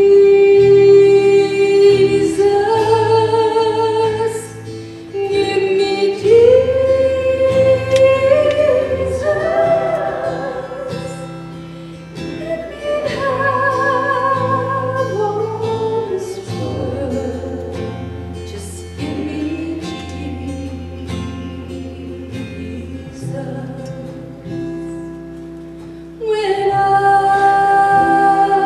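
Live church worship band playing a song, with two women singing the melody into microphones over bass guitar and band accompaniment with sustained low notes. It grows quieter through the middle and swells again near the end.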